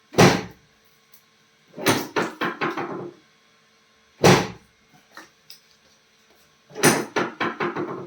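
Chiropractic adjustments: two loud single thumps, each followed a second and a half or so later by a quick run of several sharp cracks lasting about a second.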